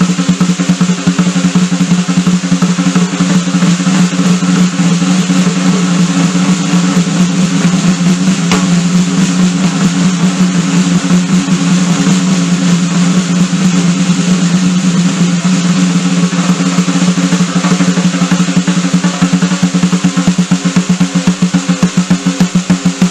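Acoustic drum kit played as a fast solo: dense, rapid strokes on the drums with cymbals ringing over them. Near the end the strokes become more separate and evenly spaced.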